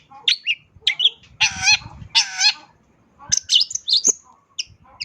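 Long-tailed shrike (cendet) singing a varied song full of imitated phrases. It gives short sharp chirps, then two longer harsh calls about a second and a half and two seconds in, then a quick run of high notes after a short pause.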